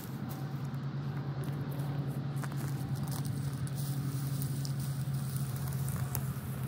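Dry grass rustling and crackling as it is handled and packed into the walls of a duck-hunting blind, over a steady low rumble.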